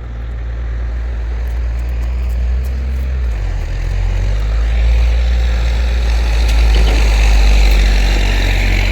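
A motor vehicle going by on the road: a steady low rumble with tyre noise that grows, peaks about seven to eight seconds in, and starts to fade.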